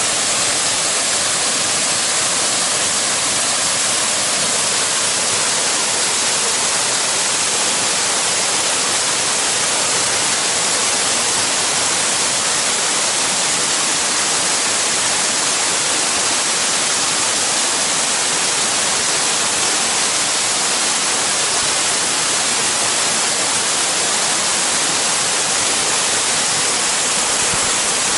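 Waterfall: water falling steadily, a loud, unbroken rush.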